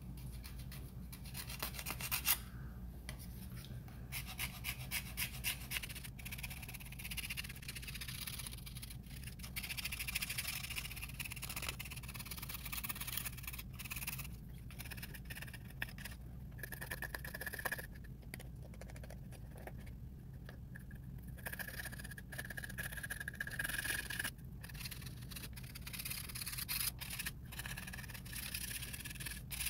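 Metal scraper blade drawn repeatedly along a wooden Lee Enfield stock piece, scraping off cosmoline that steaming has drawn to the surface of the wood. It goes in runs of short, rasping strokes with brief pauses between.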